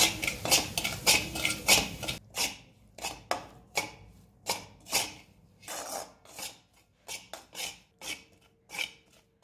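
A steel spoon scraping and stirring chickpea flour in ghee around an iron kadai, in repeated short strokes about two a second, as the flour is roasted.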